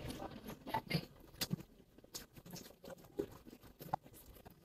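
Faint, irregular soft rustles and light taps as a roti wrap filled with noodles is rolled up by hand.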